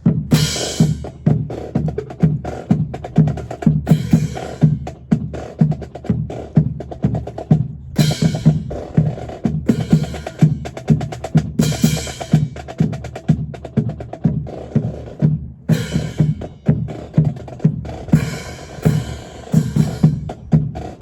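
Marching drums playing a steady cadence: bass drum beats about two to three a second under snare drum, with brighter clashing passages every few seconds.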